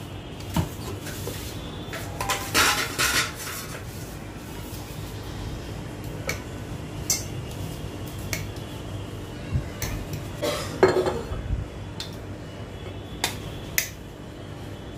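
Metal spoon clinking and scraping against a stainless steel bowl and mixer-grinder jar while scooping dry ground powder. Scattered clinks, with longer scraping passes about two to three seconds in and again around eleven seconds in.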